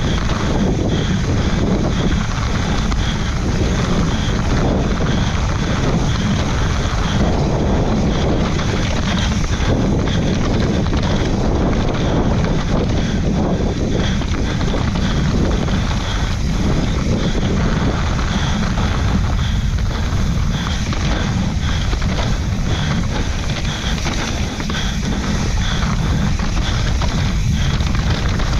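Steady wind buffeting the microphone as a Yeti SB140LR mountain bike rolls fast down a dirt trail, with the tyres and bike rumbling over the ground underneath.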